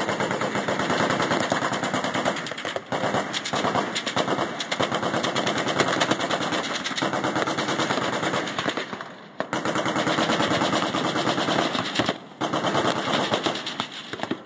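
Machine-gun fire in long, rapid bursts, with brief pauses about nine and about twelve seconds in.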